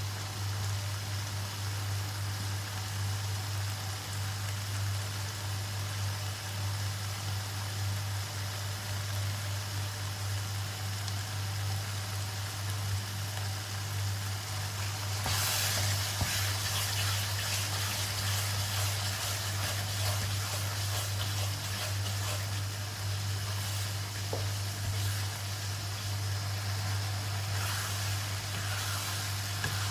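Sambal chilli paste sizzling and spattering in oil in a wok, a crackly hiss that grows louder about halfway through, over a steady low hum. Near the end it is stirred with a wooden spatula.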